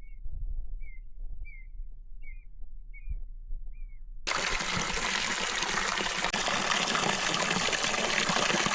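Steady rushing water, starting abruptly about four seconds in and running loud and even. Before it, a quiet series of six short high chirps about half a second apart.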